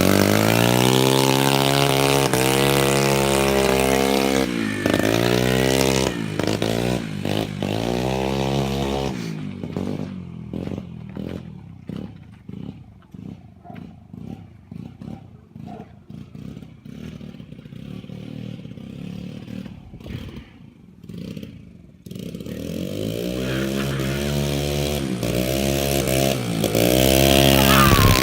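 Small 139QMB 50cc four-stroke single-cylinder scooter engine on a home-built motorised BMX, revved up and down repeatedly. About nine seconds in it drops to a much quieter stretch with scattered clicks and clatter, then revs up and down again for the last few seconds.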